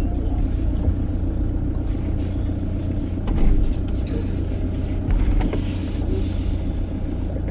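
Steady rumble of a car's engine and tyres on the road, heard from inside the cabin while driving.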